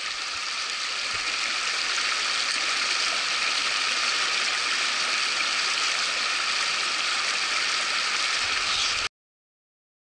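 Mountain stream water rushing steadily over rocks and a small cascade. It cuts off suddenly about nine seconds in, leaving silence.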